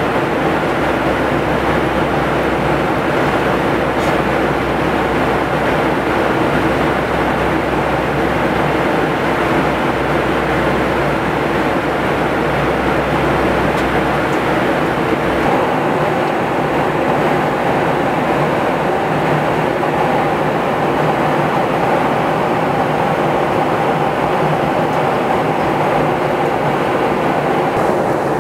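Steady cabin noise of a jet airliner in cruise: an even drone of engines and airflow, with a low hum that drops away about halfway through.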